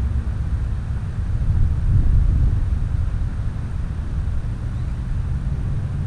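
Wind buffeting the microphone: a steady, fluttering low rumble that swells a little about two seconds in.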